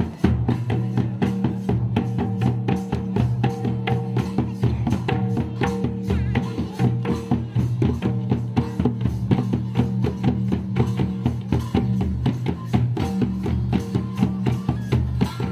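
Santal folk drumming: two-headed barrel drums (tumdak') and round hand drums beaten in a quick, steady rhythm, with steady held low notes beneath the strokes.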